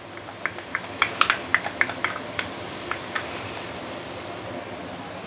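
Sambal chili paste sizzling steadily in plenty of oil in a frying pan, with a string of light clicks and scrapes over the first three seconds or so as a wooden spatula works paste from a bowl into the pan.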